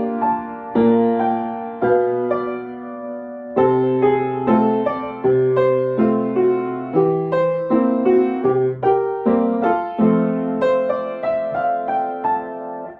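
Piano being sight-read: a steady run of struck chords with a bass line and a melody above, each note decaying. The playing breaks off at the very end.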